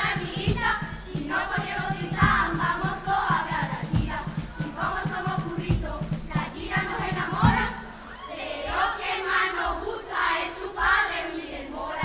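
Children's carnival chirigota chorus singing together in Spanish, with a steady beat behind them that drops out about eight seconds in, leaving the voices alone.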